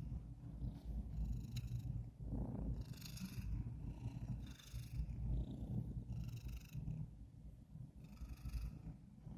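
Fat cat purring steadily, a low rumble, with a hissy, raspy breath sound recurring about every one and a half to two seconds.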